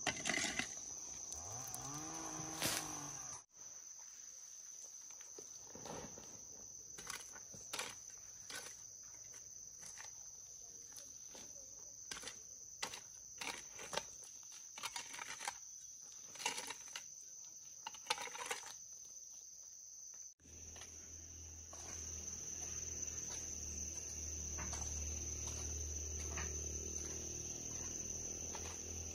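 Insects chirring steadily in a high, unbroken drone, with scattered sharp clicks and knocks through the middle and a low steady hum near the end.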